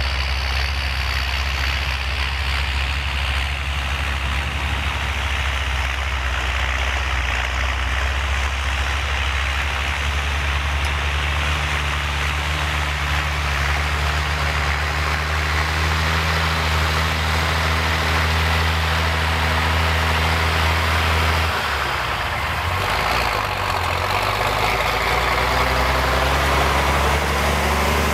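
Engine of an M109A3 military six-wheel truck running as it drives through snow toward the camera, a steady low engine note with a change in pitch about three-quarters of the way through. The sound grows slightly louder near the end as the truck comes close.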